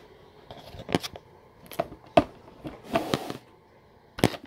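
Hard plastic parts of a hooded hair dryer clicking and knocking as they are handled and fitted together: several irregular sharp clicks, a short rustle about three seconds in, and a last knock near the end.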